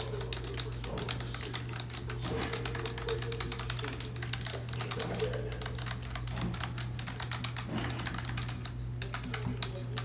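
Fast, continuous typing on a computer keyboard, many irregular key clicks a second, over a steady low hum.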